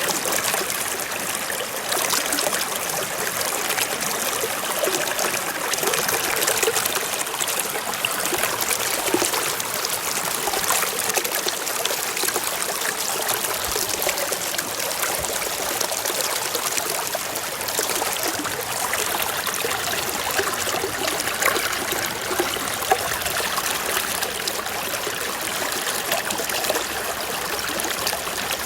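Shallow stream trickling and babbling over rocks, a steady splashy water sound with small flickering splashes.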